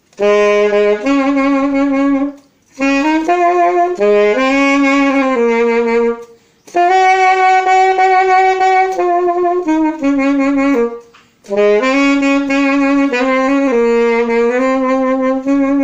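Saxophone playing a jazzy melodic line in four phrases with brief breaths between them. Each note is lightly tongued (legato soft tonguing) rather than purely slurred.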